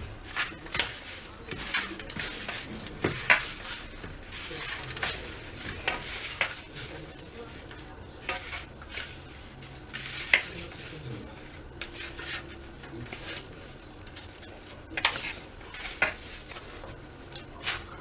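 Fingers mixing crumbly milk-peda dough (milk powder cooked with ghee and milk, with powdered sugar) by hand on a steel plate: a steady rubbing and scraping against the metal, broken by irregular sharp taps on the plate.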